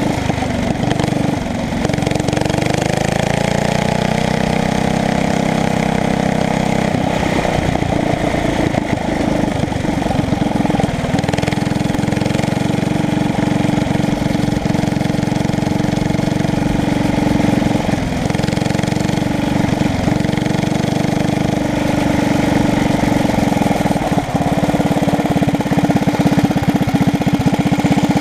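Briggs & Stratton 5 hp single-cylinder flathead engine with an open header exhaust, driving a go-kart under load. Its pitch rises about two seconds in as the kart speeds up, then holds fairly steady with a few short dips as the throttle eases.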